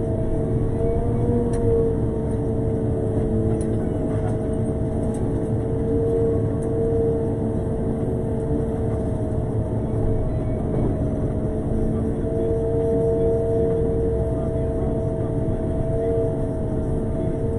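Road sweeper driving along the street, its engine and machinery running: a continuous low rumble under a steady whine.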